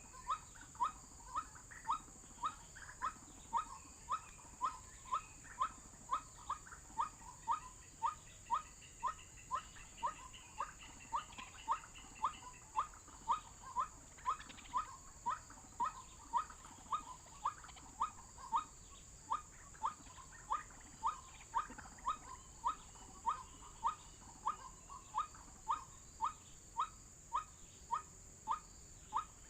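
White-breasted waterhen call played as a lure recording: a short rising note repeated evenly about twice a second, over a steady high hiss.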